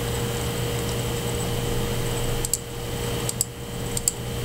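Steady hum and fan-like hiss of a computer microphone setup, with a few sharp computer mouse clicks, some in quick pairs, in the second half.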